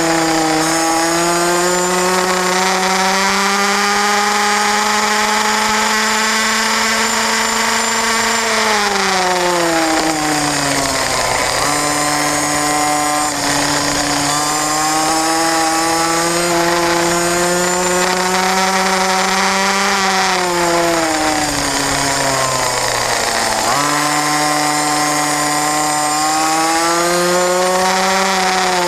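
Racing kart engine heard onboard through a lap. The revs climb steadily along the straights and drop away twice as it slows for corners, about a third of the way in and again about three quarters of the way in, each time picking up and climbing again.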